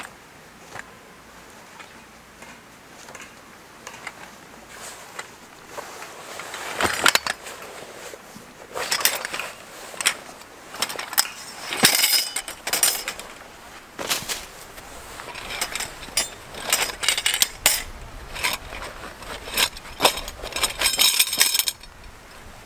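Kirkham's Springbar tent's metal poles and stakes clinking and knocking together as they are pulled from the pole bag and laid down. The sharp clinks start several seconds in, come irregularly, and grow densest just before the end.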